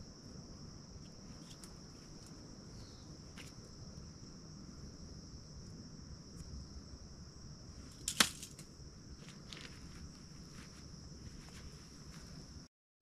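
Steady high-pitched drone of insects, with scattered light clicks and one sharp click about eight seconds in. The sound cuts off abruptly just before the end.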